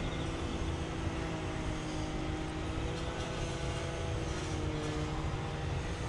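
Steady low mechanical hum with a few faint tones that drift slowly in pitch.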